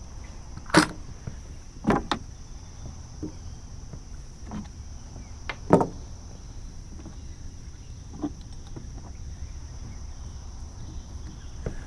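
Scattered clicks and knocks of fishing tackle being handled at a plastic cooler, as lead sinkers are picked out of it, the sharpest about one, two and six seconds in. Under them runs a steady high-pitched drone of crickets.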